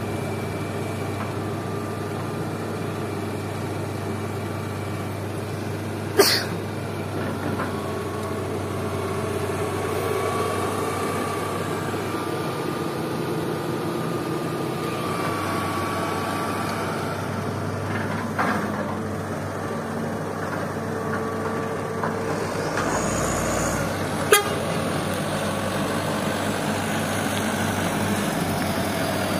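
Hydraulic excavator at work: its diesel engine runs steadily under a hydraulic whine that rises and falls. Two sharp clanks stand out, about 6 seconds in and again near 24 seconds.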